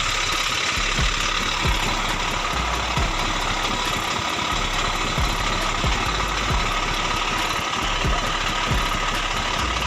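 Mitsubishi Canter light truck's diesel engine running steadily, with low thuds about once a second.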